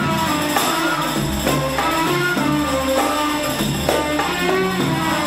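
Instrumental break in an Egyptian Arabic pop song, with no singing: the band plays a stepping melody over a steady percussion beat.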